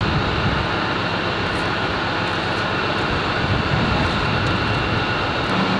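Steady running of a heavy engine, a broad even noise with a thin high whine over it; a low steady hum comes in near the end.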